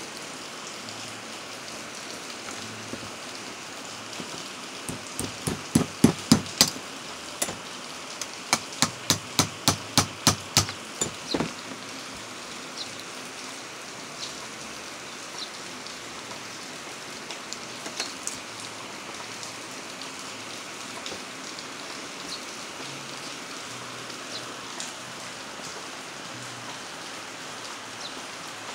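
Two quick runs of sharp metallic taps, about three or four a second, as a knife blade is worked between the steel laminations of a small transformer core to pry a plate loose. A few single ticks follow, over a steady hiss.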